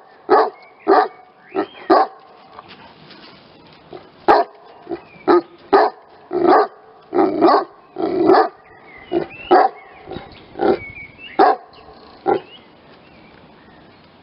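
Saint Bernard barking and 'talking' in a long run of short, pitched barks and some longer drawn-out woofs, with a pause near the start, stopping about twelve seconds in.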